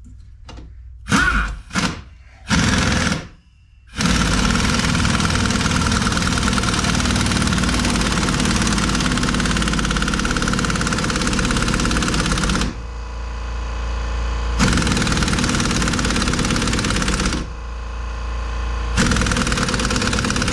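Impact wrench hammering on a nut to pull a new wheel stud into the hub. It goes in a few short bursts at first, then runs for long stretches, going softer twice before picking up again.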